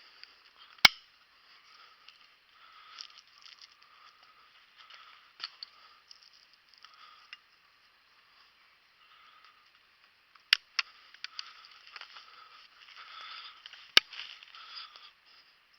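Quiet summer woodland: a faint, flickering high chirring runs throughout, broken by three sharp clicks, about a second in, about ten and a half seconds in and about fourteen seconds in.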